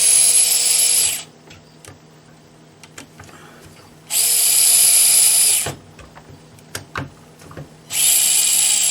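Axial SCX24 crawler's small electric motor and drivetrain whining at full throttle in three bursts of about a couple of seconds each: one cutting off about a second in, one in the middle, and one starting near the end.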